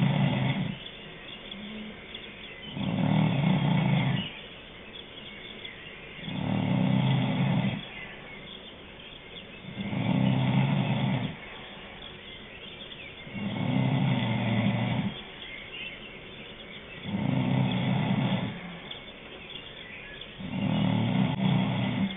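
Snoring, one drawn-out snore about every three and a half seconds, each lasting about a second and a half, with quiet breathing gaps between.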